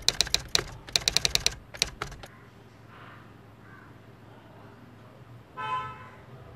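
Keyboard-typing clicks, a quick run of about fifteen over two seconds as a caption types out, then a short horn-like toot near the end.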